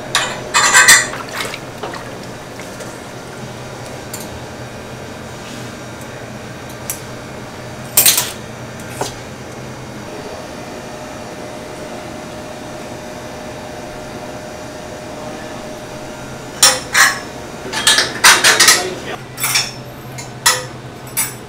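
Metal clinking and clanking of steel hooks knocking on a hanging rack as raw ducks are hung up: a cluster about a second in, one near eight seconds, and a run of them over the last five seconds, over a steady low hum.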